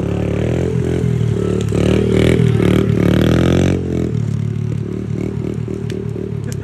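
Car engine revving hard, loudest from about two to nearly four seconds in, then dropping back to a lower, uneven pulsing run.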